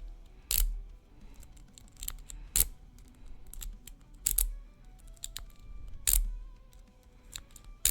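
Metal lock-picking tools working in a lock: a pick and tension wrench clicking and scraping against the pins. There are five sharper clicks, roughly one every one and a half to two seconds, with lighter ticks between.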